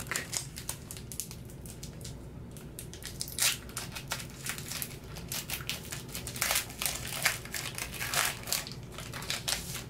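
Foil wrapper of a Pokémon TCG booster pack being torn open and crumpled by hand: an irregular run of sharp crinkles and crackles that grows busier from about three seconds in.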